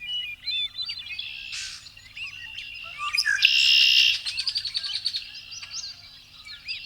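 Songbirds singing, many quick chirps and sweeping notes overlapping, with a louder, harsh stretch about three seconds in.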